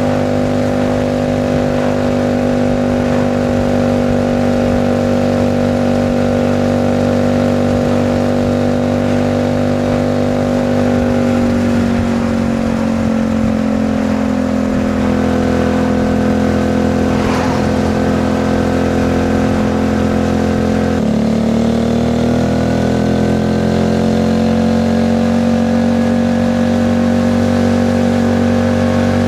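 Alpha moped's single-cylinder four-stroke engine running under way at a steady pace. Its pitch sinks slowly about a third of the way in, then about two-thirds in it changes abruptly and climbs before settling again.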